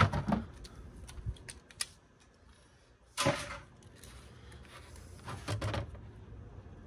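Small metal and plastic parts of a DVD player's disc mechanism clicking and clattering as they are worked apart by hand. A sharp clack comes about three seconds in, and a shorter rattle near the end.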